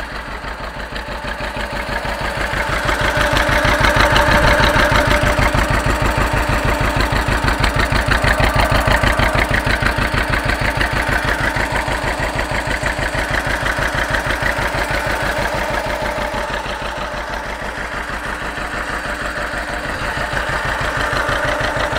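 John Deere 530 tractor's two-cylinder engine idling with an even, pulsing beat, just after its first start following an overhaul. It gets louder a few seconds in, then eases off slightly later on.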